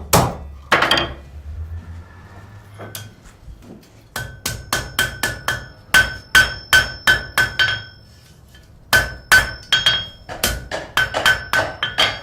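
Blacksmith's hammer striking metal on an anvil in two runs of quick, rhythmic blows, about three a second, each with a high metallic ring. There is a short pause between the runs.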